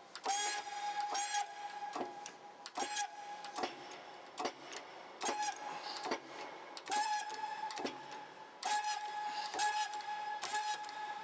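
Repeated hammer blows on steel parts, about one a second and a little faster near the end, each leaving a clear metallic ring.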